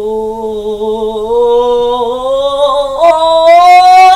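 A woman singing a gospel song into a microphone, holding one long note with vibrato that climbs slowly and steps up to a higher note about three seconds in.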